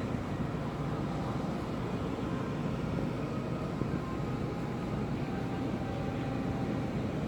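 Steady low rumble and hum of a ferry's engines heard on board, with a faint steady tone running through it.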